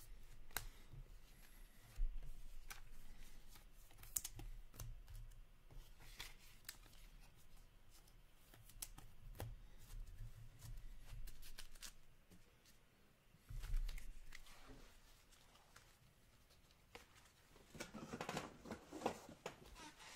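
Trading cards and their packaging being handled on a tabletop: scattered light clicks and taps, a soft thump about two seconds in and another about two-thirds through, and a spell of rustling near the end.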